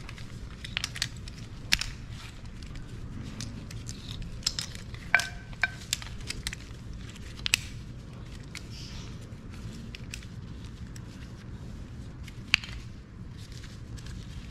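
RHINO USA ratchet tie-down straps being handled on a tile floor: the nylon webbing rustles, and the metal S-hooks and ratchet buckles give scattered sharp clicks and knocks. The sharpest click comes near the end. A steady low hum runs underneath.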